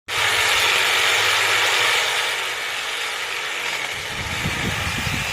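Hyper Tough reciprocating saw switched on suddenly and running steadily, its motor and blade going at full speed. It is loudest for the first two seconds and then settles a little lower, with a rougher low rattle toward the end.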